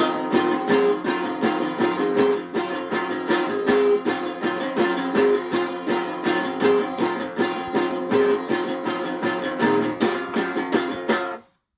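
Instrumental music of quickly picked plucked strings in a steady, even rhythm, cutting off suddenly near the end.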